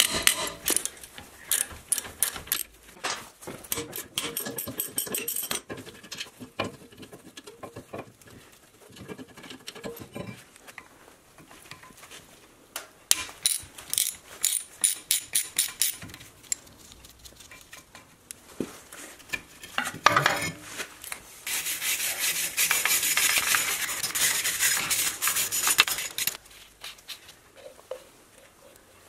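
Socket ratchet clicking in quick runs as the brake caliper bracket bolts and the rotor's T27 Torx screw are turned out. A sharp metal clank comes about twenty seconds in, then a wire brush scrubs steadily on the bare steel wheel hub for several seconds.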